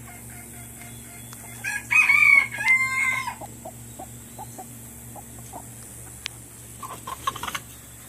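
Backyard chickens: a rooster crows once about two seconds in, followed by soft short clucks from the hens and a brief burst of clucking near the end. A steady low hum runs underneath.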